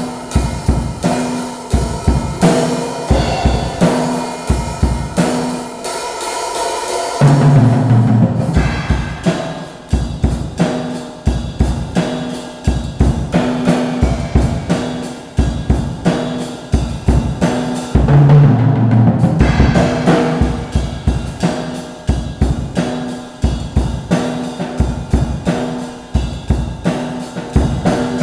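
Acoustic drum kit played solo and improvised: a steady groove of bass drum, snare and cymbals, broken by two louder fills, about seven seconds in and again about eighteen seconds in.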